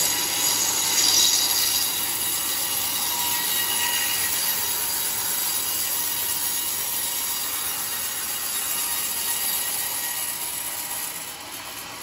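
Band sawmill blade cutting lengthwise through a coconut palm (glugu) log: a loud, steady high hiss and whine with faint ringing tones, loudest in the first two seconds and easing off near the end.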